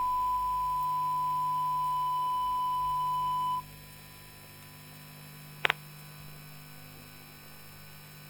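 Bombardier IGBT VVVF traction inverter of a 2009 Tube Stock train, picked up electromagnetically by a telephone pickup coil: a steady electronic whine around 1 kHz that cuts off suddenly about three and a half seconds in. A low electrical hum is left, with a sharp double click a couple of seconds later.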